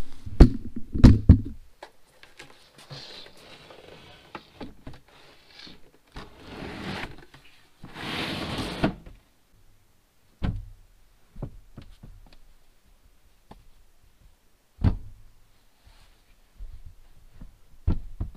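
Wooden seat panels and foam cushions being handled and put into place as the U-shape seating is made up into a bed. A few sharp knocks come in the first couple of seconds and are the loudest sounds, then cushions rustle and slide, then single thuds follow as pieces drop into place.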